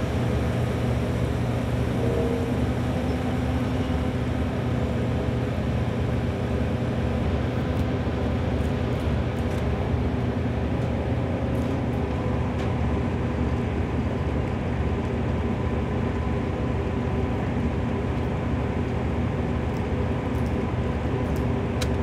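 Horizontal directional drilling rig's diesel engine running with a steady, even drone, with a few light clicks about halfway through.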